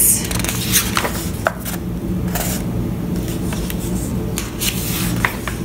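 Paper pages of a large softcover book rustling and flapping as they are turned and smoothed by hand, in several short, sharp swishes, over a steady low hum.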